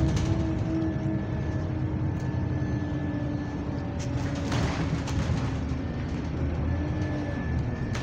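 Cabin sound of an Alexander Dennis Enviro200 bus: a steady low drone from the engine and running gear with a thin, faintly wavering whine over it. A brief clatter comes about halfway through.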